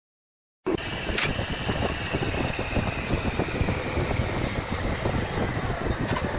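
Wood lathe running steadily, with a faint whine that slowly falls in pitch; it cuts in suddenly about half a second in.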